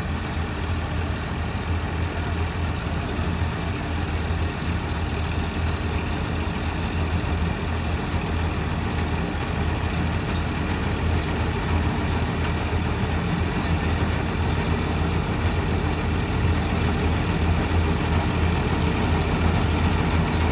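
Eicher combine harvester running steadily as it cuts a standing grain crop: a deep engine hum under the clatter of the cutting and threshing machinery. It grows slowly louder as the machine comes closer.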